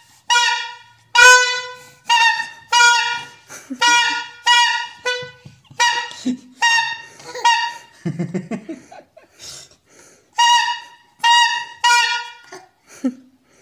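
A small child blowing a plastic toy horn in short, repeated honks at one pitch, about one or two a second, with a brief pause a little past the middle.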